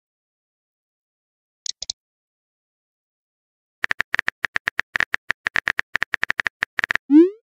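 Virtual keyboard typing clicks in a texting app, a fast even run of about ten clicks a second for some three seconds, after a brief pair of high blips about two seconds in. Near the end a rising pop begins: the sound of a message being sent.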